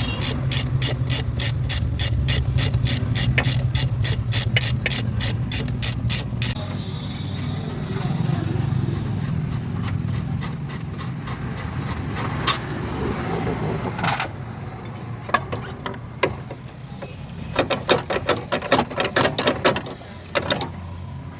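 Ratchet wrench clicking rapidly and evenly, about four clicks a second, over a low hum as a suspension clamp bolt is undone; the clicking stops after about six seconds. Scattered metal clinks and clanks of tools and parts follow, busiest near the end.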